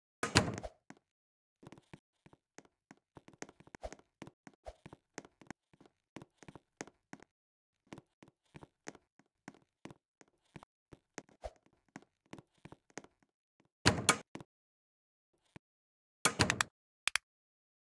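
Scattered light taps and knocks, with louder clattering thuds near the start, about fourteen seconds in, and again near the end.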